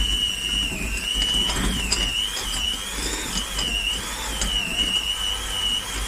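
Electric hand mixer running, its beaters working through a bowl of butter that is not quite soft enough. The motor gives a steady high whine that wavers slightly in pitch.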